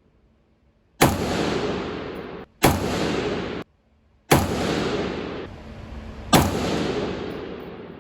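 Four rifle shots from an AR-15, about a second and a half to two seconds apart, each followed by a long echo in an indoor range.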